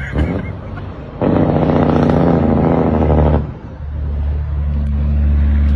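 Semi truck's diesel engine, with a loud, rapid exhaust rattle from about a second in that lasts about two seconds, then a steadier low drone.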